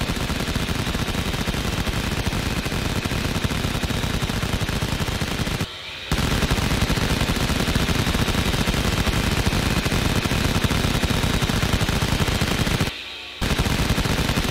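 Rapid automatic machine-gun fire, as a sound effect for a plastic toy rifle, in long continuous bursts broken by brief pauses about six seconds in and again near the end.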